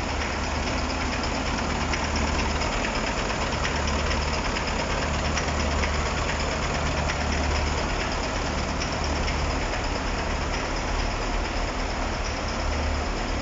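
KAMAZ 6520 truck's diesel engine idling steadily, being run in just after its first start following a major overhaul.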